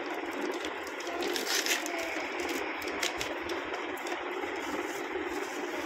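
Plastic wrapping crinkling and rustling as it is handled and pulled off a cardboard box of oil pastels, a steady crackle of many small clicks.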